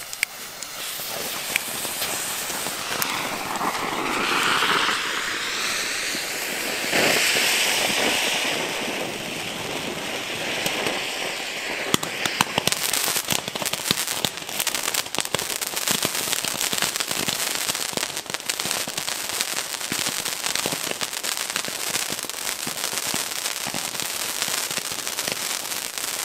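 Consumer fireworks, a fountain battery and a whole set of bundled Roman candles lit at once: first a rushing, rising hiss, then from about twelve seconds in a dense run of sharp pops and crackles.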